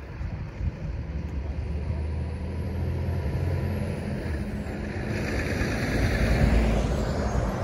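A motor vehicle driving past: a low engine hum with a rush of tyre noise that builds to its loudest near the end.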